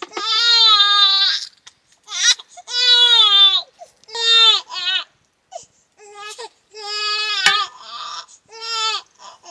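A baby crying: a string of high, wavering wails, each up to about a second and a half long, with short breaks for breath between them.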